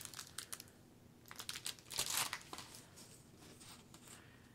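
Faint crinkling and rustling of clear plastic film and paper as a diamond painting canvas and its sheets are handled, in several short bursts over the first two and a half seconds.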